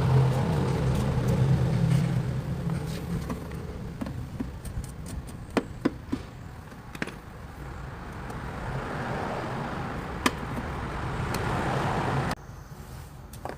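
A motor runs with a steady buzzing hum, with a few sharp metallic clicks over it, and cuts off suddenly near the end.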